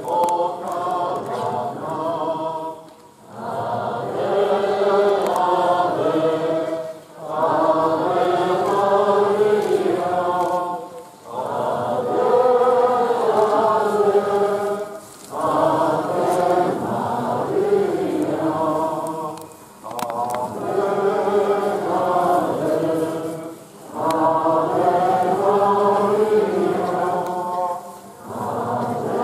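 Voices singing a slow hymn together, in phrases of about four seconds with a short break for breath between each.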